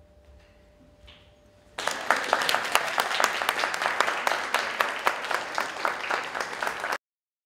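Audience applauding, starting suddenly about two seconds in after faint room tone with a steady hum, and cutting off abruptly near the end.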